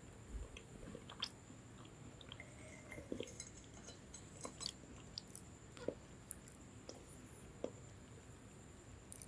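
Close-miked chewing of a lemon sandwich biscuit: faint, irregular crisp crunches and small mouth clicks.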